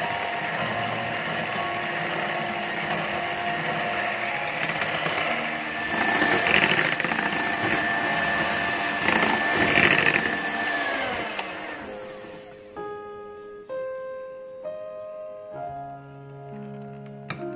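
Electric hand mixer running at medium to high speed, its twin beaters whipping egg whites into stiff meringue. About eleven seconds in it is switched off and its whine falls away, and soft piano music follows.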